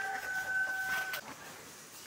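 Rooster crowing: the long held end of a crow on a steady pitch, cutting off about a second in, with a faint knock as it stops.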